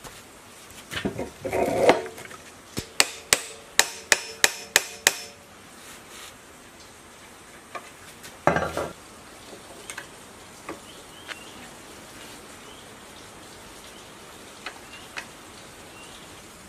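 A metal tool tapping against the metal parts of a small gasoline generator during assembly: a short scrape, then about eight sharp ringing taps at about three a second. A brief rustle follows, then a few light clicks.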